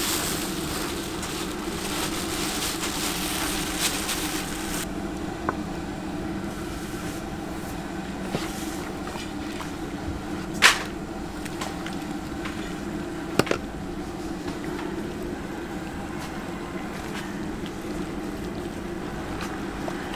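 Working sounds at a market fried-chicken stall: a steady low hum with scattered clinks and knocks. A hiss lasts the first five seconds and stops suddenly, and there is one sharper clatter about halfway through.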